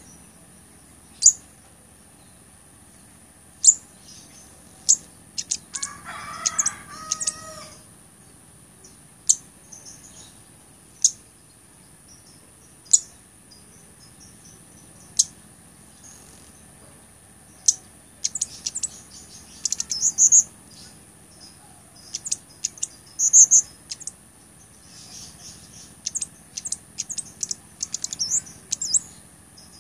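Blood-breasted flowerpecker (cabai gunung) calling: sharp, high single ticks every second or two, then from about two-thirds of the way through, quick bursts of high, rapid twittering notes.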